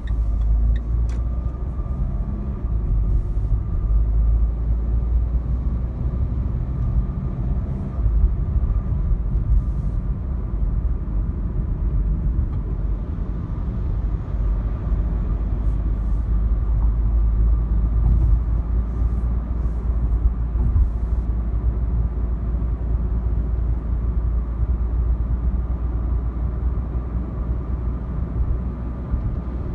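Renault Clio IV's 1.5 dCi diesel engine and tyre and road noise, heard from inside the cabin while driving, as a steady low rumble.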